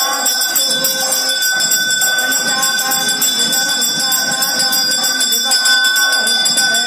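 Temple hand bell rung rapidly and without pause during the aarti lamp-waving, a steady metallic ringing, with voices underneath.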